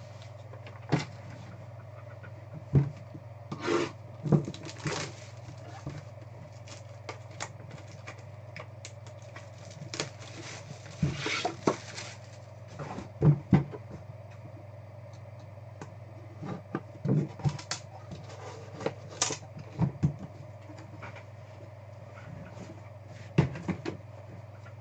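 A sealed cardboard trading-card box being unwrapped and opened by hand: irregular knocks, clicks, scrapes and rustles of cardboard and wrapping, over a steady low hum.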